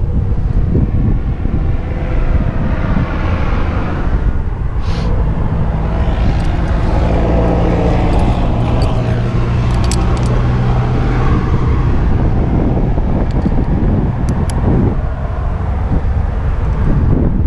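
Road traffic: a vehicle passing, its engine hum swelling through the middle and fading away, over a steady low rumble of wind on the microphone.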